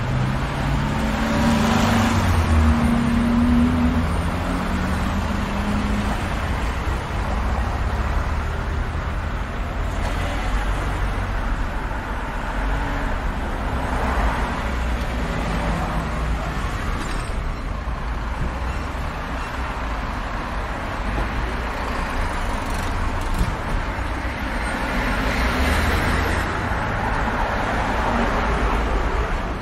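Busy street traffic at an intersection: a steady low rumble of engines and tyres, with cars passing close by in swells, the loudest about two seconds in and again near the end. An engine's hum stands out in the first few seconds.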